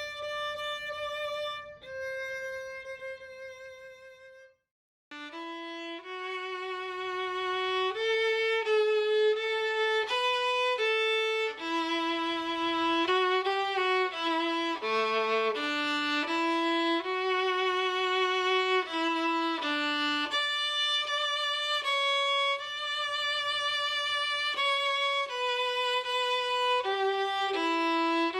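Violin playing a slow melody of long held notes with wide vibrato. The sound drops out for a moment a few seconds in, then the melody resumes.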